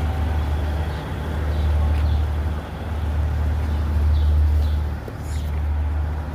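A steady low rumble that swells and dips, with faint high peeps of poultry chicks now and then.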